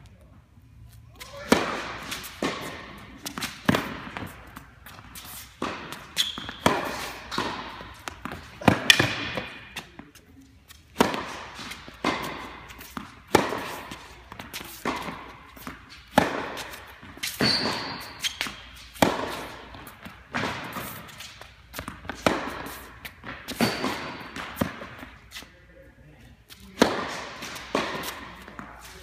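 Tennis balls being struck by racquets and bouncing on an indoor hard court: a run of sharp hits at irregular intervals, roughly one a second, echoing in the hall.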